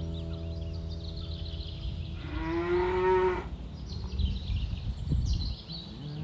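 Village cattle mooing: a low, drawn-out moo fades out about two seconds in, then a louder, higher moo lasts about a second, and another starts at the very end.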